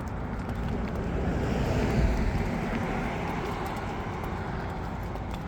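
A vehicle passing by, growing to its loudest about two seconds in and then fading, over the low rumble of wind on the microphone.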